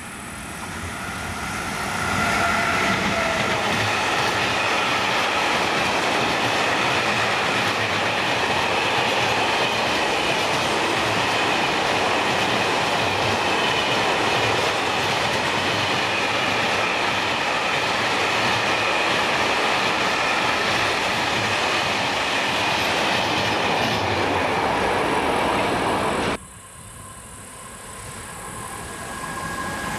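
Electric locomotive and a long rake of grain hopper wagons passing close by: a steady rumble and clatter of wheels on rail with a thin high squeal, swelling over the first two seconds. About 26 seconds in it cuts off suddenly to a quieter rail rumble that grows as another train approaches.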